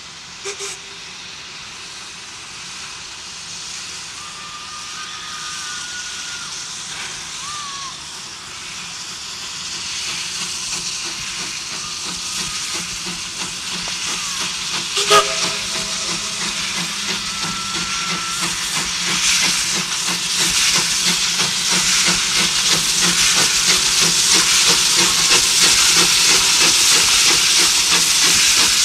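Baldwin 2-6-2 steam locomotive No. 12 working a train, its exhaust and steam hiss growing steadily louder as it approaches and passes close by. A brief sharp blast sounds about halfway through.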